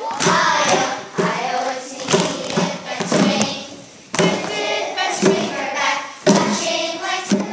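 A group of children singing together in unison, with repeated sharp thumps through the song.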